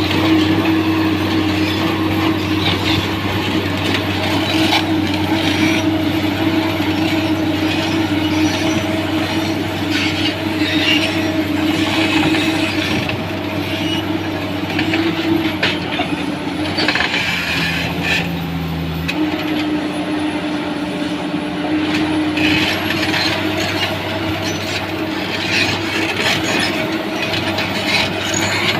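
Tracked excavator's diesel engine running steadily, with intermittent metallic clanks and rattles from the machine working. The engine note shifts about two-thirds of the way through.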